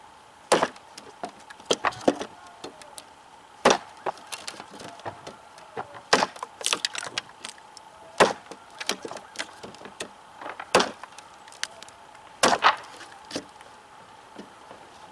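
cKc Voyager large chopping knife biting into a reclaimed 2x4 with light, wrist-driven chops: about a dozen sharp wooden whacks at uneven intervals, roughly one a second, with smaller clicks of splintering chips between them.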